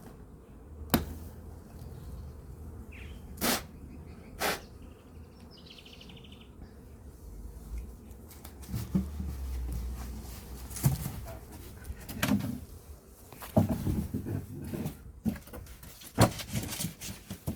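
Honey bees buzzing around an opened beehive, with sharp knocks and short scrapes every second or two as the wooden hive frames are handled and prised loose.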